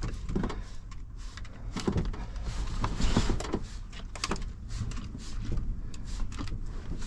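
A hand-pumped trigger spray bottle squirting glass cleaner onto window glass: a string of short, sharp spritzes, some in quick bursts, over a steady low rumble.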